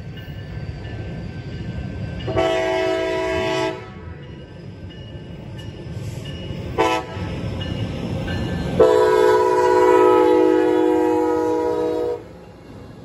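Amtrak San Joaquins locomotive horn sounding the grade-crossing signal: a long blast, then a short one, then a final long blast held until the locomotive reaches the crossing. The multi-note chord plays over the rising rumble of the approaching train.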